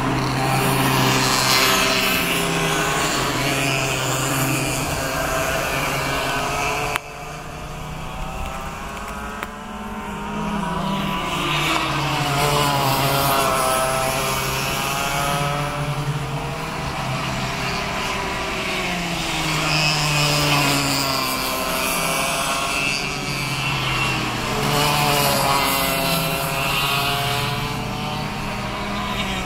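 Several cadet racing karts' small two-stroke engines buzzing round the circuit, their pitch rising as they accelerate and falling as they brake, the notes overlapping. The sound drops abruptly about seven seconds in, then builds again.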